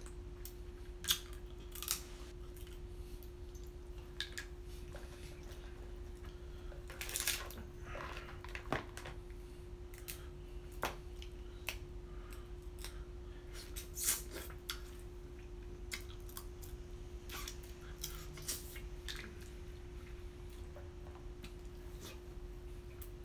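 Crab leg shells being cracked and picked apart by hand: scattered short cracks and clicks, with some chewing, over a steady faint hum.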